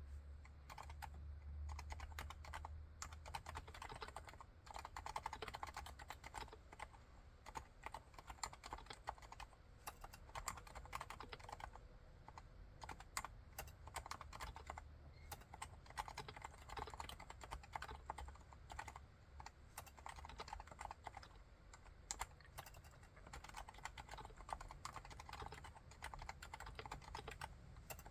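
Steady, fast typing on a Leopold FC660C keyboard with Topre silent electrostatic capacitive switches: a continuous run of soft, damped keystrokes.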